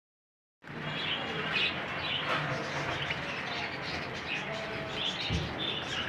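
A flock of caged Java finches chirping: many short, overlapping calls, starting about half a second in.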